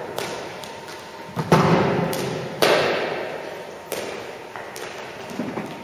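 Practice cricket balls knocking against bat and hall floor: a run of knocks, two louder ones about one and a half and two and a half seconds in, each ringing on in the sports hall's echo.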